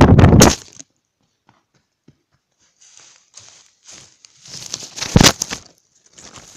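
Wind buffeting the microphone of a tossed iPod in quick pulses as it tumbles through the air, stopping under a second in. After a near-quiet gap come scattered knocks and scraping against the device, with one sharp knock about five seconds in.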